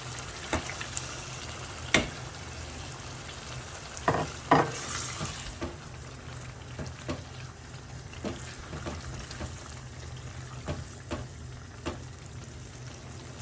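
Food sizzling in a non-stick aluminium pot while it is stirred, with a dozen or so sharp knocks of the spoon against the pot, the loudest about two seconds and four and a half seconds in.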